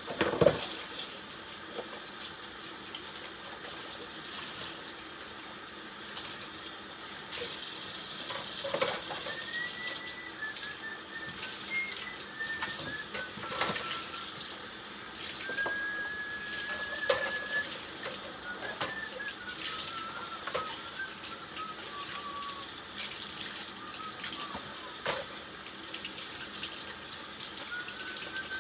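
Tap water running into a kitchen sink, with a few knocks and clinks of dishes being handled.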